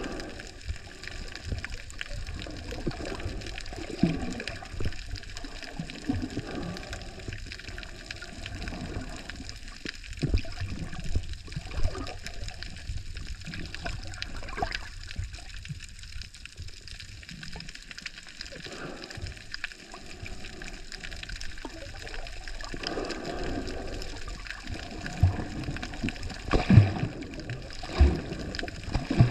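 Water sloshing and gurgling around a camera held underwater, an uneven rushing with swells and a few knocks, louder near the end.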